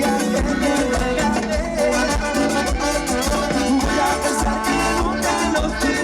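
Live dance orchestra playing Latin tropical dance music, with a steady beat of hand percussion under pitched instruments.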